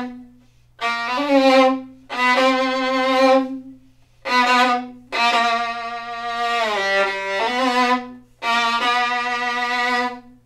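Solo violin played loud in the low register on the G string: long sustained bowed notes in about five phrases with short breaks between them, one phrase sliding down to a lower note in the middle. Heard from about 12 feet away, so the room's acoustic is part of the sound.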